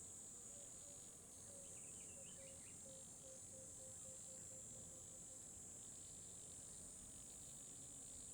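Near silence with a faint, steady, high-pitched insect chirring throughout.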